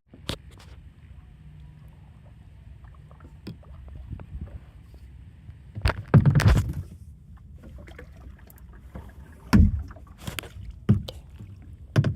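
Kayak being paddled: irregular splashes and knocks of the paddle, loudest about six seconds in and again near nine and a half seconds, over a steady low rumble.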